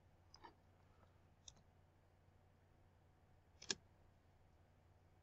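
Near silence with a few soft clicks of a computer mouse, the sharpest about three and a half seconds in.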